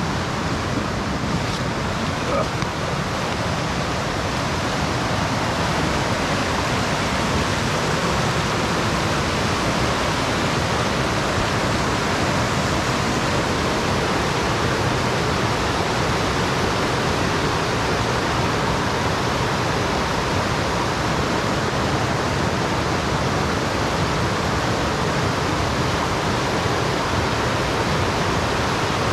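Steady rush of water where two mountain creeks meet, the water boiling up over the rocks.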